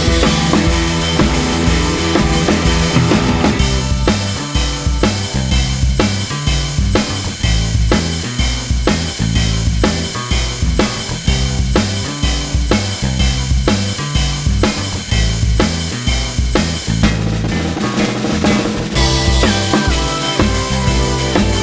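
Background music with a drum kit playing a steady beat over bass and melody.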